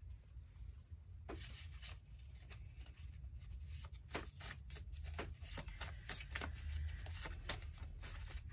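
Tarot cards being shuffled by hand: a quick, irregular run of card flicks and rustling that starts about a second in, over a low steady hum.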